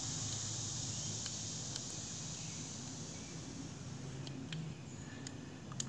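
Faint clicks of small lawn mower carburetor parts, metal and a plastic float, being handled and fitted back together, over a steady hiss.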